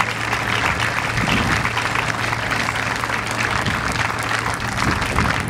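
Audience applauding, a steady mass of clapping hands.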